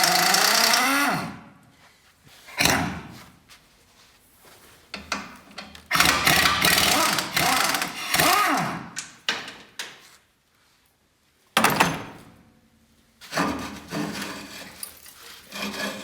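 A power tool runs in several separate bursts with pauses between. The first run wavers in pitch and stops about a second in; a short burst, a longer run of a few seconds, and two more bursts follow.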